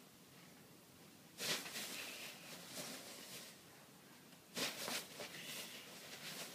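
Bean bag filling rustling and crunching as a Scottish terrier shifts its weight on it, in two bouts starting about a second and a half in and again near the end.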